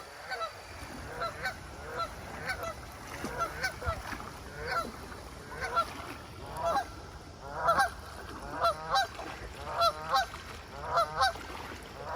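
A goose honking over and over, with short calls at first and then louder quick runs of two or three honks in the second half.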